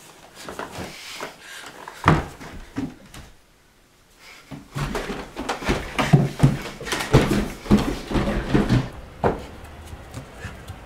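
A thump, then a quick run of footsteps thudding down wooden stairs, ending in a sharp knock like a door.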